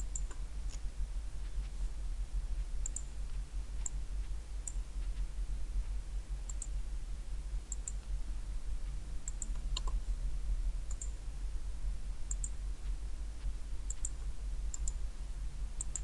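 Computer mouse clicking: faint, sharp clicks about once a second or two, several coming in quick pairs, over a steady low hum.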